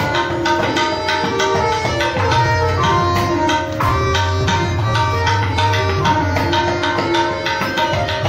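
Harmonium playing a melody in Raag Yaman over a rhythm of tabla and cajon in Jhaptaal, the ten-beat cycle. The held reed notes shift step by step, with the tabla's deep bass stroke and sharper strikes under them.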